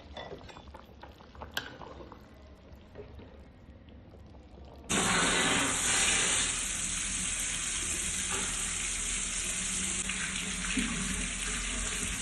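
Steady rush of running water that switches on suddenly about five seconds in, after a few seconds of faint small clicks.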